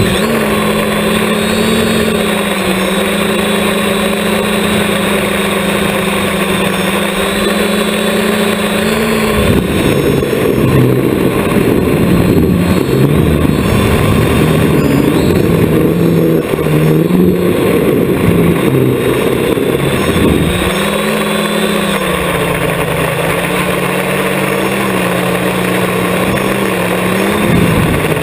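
Multirotor drone's electric motors and propellers heard through its onboard camera: a steady buzzing hum over rushing wind noise. About ten seconds in, the hum gives way to roughly ten seconds of wavering pitch and heavier wind, then settles back to a steady hum.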